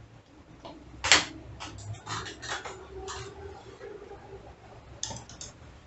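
Knocks and clicks of things being handled: one sharp knock about a second in, then a run of lighter clicks and taps, and a few more clicks near the end.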